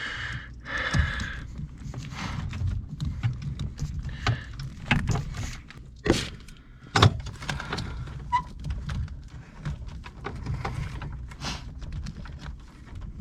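Hands working parts loose under a car's dashboard: rustling and an irregular series of clicks and knocks, with two sharper clicks about six and seven seconds in.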